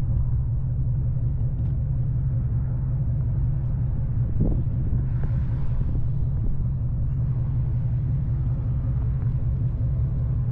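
2003 Ford Mustang SVT Cobra's supercharged 4.6-litre V8 idling steadily through an SLP Loudmouth exhaust, an even low rumble with no revving.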